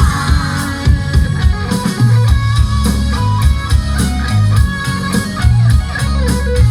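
Recorded music with guitar, drums and heavy, sustained bass notes, played loud through a PS TT-12M 12-inch top speaker and a PS SUB905s 15-inch subwoofer as a sound test.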